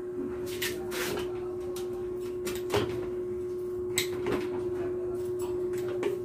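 Scattered clicks and short scrapes of hands working at a metal window frame during a window fitting, over a steady low hum.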